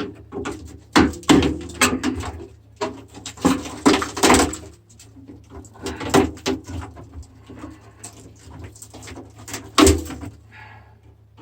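Irregular clattering, scraping and knocks of tools against a rusted microwave oven's sheet-metal casing as its screws are worked at. The loudest knocks come about a second in, around four seconds in and near ten seconds, over a steady low hum that stops shortly after the last knock.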